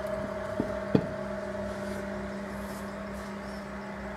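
Steady mechanical hum, with two light knocks close together about a second in.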